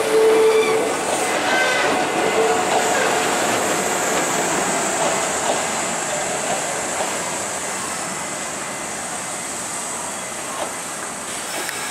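Kintetsu Minami-Osaka Line electric train rolling along the track beside the platform, its wheel and running noise slowly fading as it moves away. A steady whine sounds in the first second.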